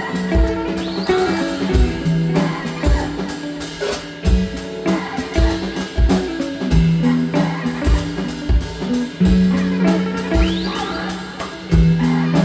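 Instrumental band music: electric guitar playing over a drum kit's steady kick-drum beat, with a low held drone from a didgeribone that steps between a few pitches.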